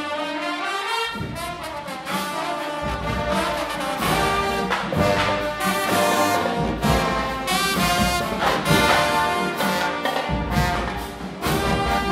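A band's brass horns playing held chords together, with drum strokes coming in about a second in and pounding through the rest.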